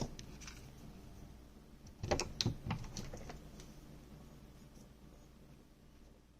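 A few light clicks and taps of small tools being handled on a microsoldering bench, most of them in a cluster about two seconds in, while flux is being put down on the board.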